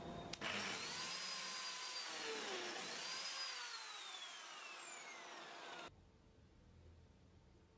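Lamello Zeta P2 joiner's motor spinning up with a rising whine as it cuts a slot for a hidden connector in a cabinet panel, dipping in pitch briefly, rising again, then winding down with a long falling whine. The sound cuts off abruptly about six seconds in.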